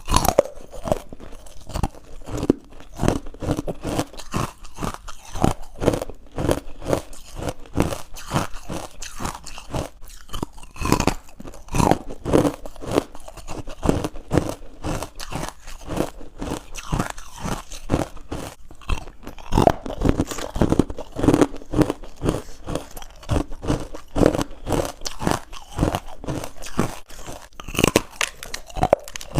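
Close-up chewing of crunchy white ice bites: rapid, continuous crunching, several crunches a second.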